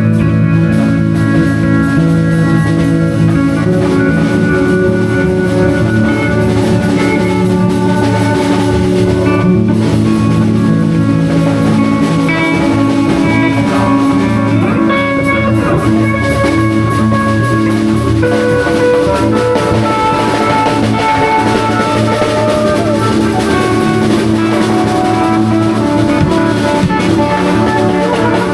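Live band improvising instrumental music in a jam session, playing continuously at a steady loud level with many held notes.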